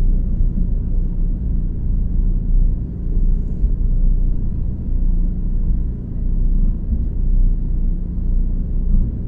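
Cruise boat's engine running, a steady low drone heard on board.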